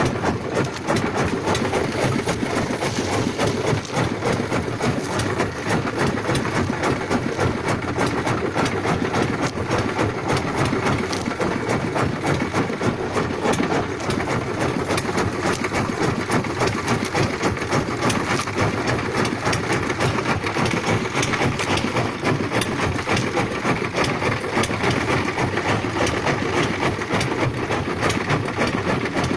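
A boat's engine running steadily under a constant rush of water and wind noise.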